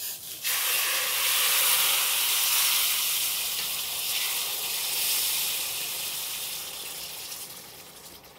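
Hot water poured into a steel pan of semolina roasted in ghee, setting off a loud sizzling, steaming hiss. It starts about half a second in and slowly dies away.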